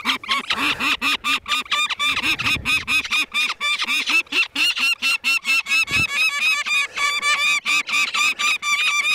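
Young peregrine falcon chick calling in a long rapid run of harsh, repeated cries (the eyas's alarm cackle), kept up while it is held and banded.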